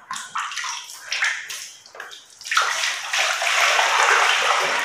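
Water splashing in a plastic basin as a wet cat is held and rubbed in it, then from about halfway in a steady loud pour of water from a plastic jug over the cat into the basin.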